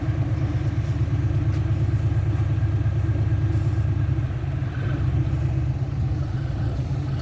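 Heavy diesel engine idling with a steady, low, throbbing rumble.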